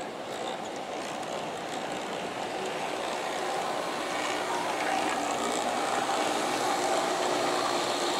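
G-scale Aristo-Craft E9 diesel locomotives running along the track at the head of a passenger train, a steady rolling and running noise with a faint hum. It grows gradually louder as the locomotives come close and pass.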